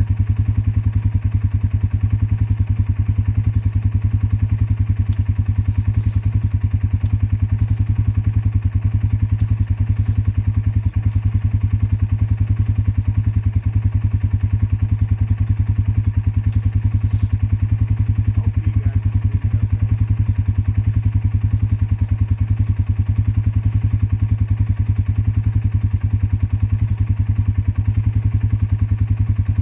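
Four-wheeler engine idling steadily, with no revving.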